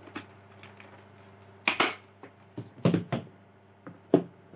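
Clicks and rattles of plastic plugs and cable being handled and fitted together: a plug-in power meter, a power strip and a servo motor's power cord. There are a few clusters of clicks, with one sharp click a little after four seconds.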